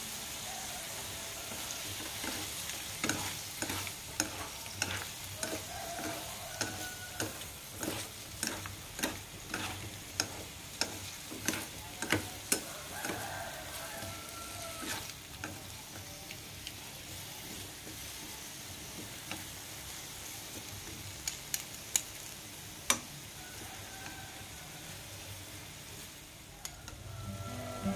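Eel pieces sizzling in a hot steel wok while a spoon and chopsticks stir them, knocking and scraping against the pan about twice a second for the first half, then only now and then.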